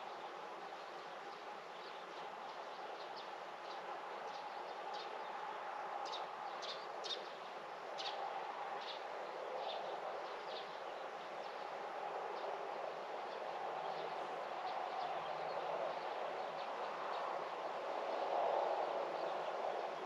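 A bird calling: a run of short, high chirps, roughly one or two a second, through the first half. Under it is a steady background noise that grows somewhat louder toward the end.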